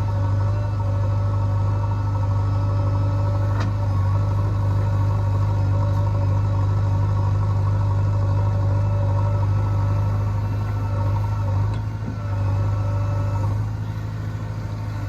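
Heavy diesel engine running steadily with a low, even hum, with one sharp click about three and a half seconds in.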